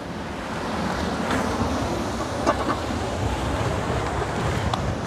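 Steady rushing of wind and surf, with a few faint clicks.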